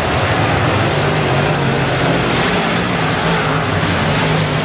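Several semi late model dirt track race cars racing at once, their V8 engines running hard together in a loud, steady blare with a low drone underneath.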